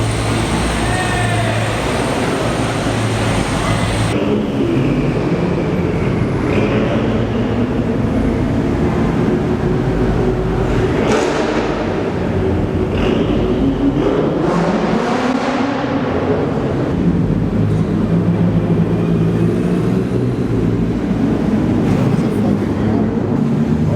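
Car engines running in a parking garage, with several revs that rise and fall in pitch, and people talking in the background.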